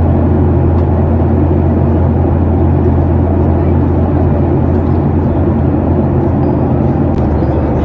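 Steady, loud, low drone of a Boeing 737 jet airliner heard from inside the passenger cabin, with a single click about seven seconds in.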